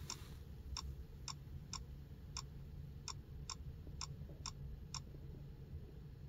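A run of short, sharp electronic ticks, roughly two a second at uneven spacing, over a low steady hum.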